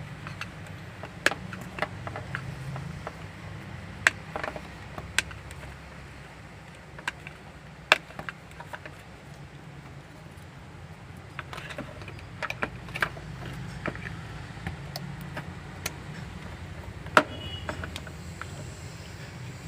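Scattered sharp metallic clicks and clinks of hand tools and parts being handled during replacement of a car's fuel pump control module, over a steady low hum.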